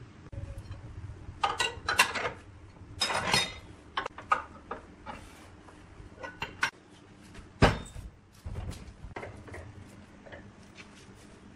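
Irregular metallic clanks and knocks as the parts of a wood lathe are handled and adjusted, the tailstock being set on the bed, with the loudest knock about two-thirds of the way through.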